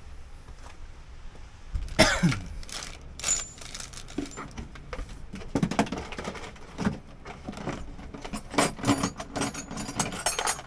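Metal spanners and nuts and bolts clinking and rattling as they are handled and laid out, a string of sharp clicks that grows busier from about halfway through. Low wind rumble on the microphone throughout.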